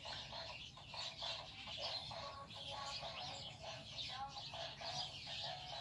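Birds chirping and calling in a continuous chatter of short calls, several a second, overlapping.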